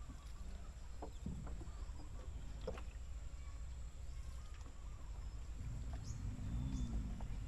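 Scattered short bird calls over the low, steady rumble of a rowing boat moving on a canal, with a few higher chirps near the end and a faint steady high tone.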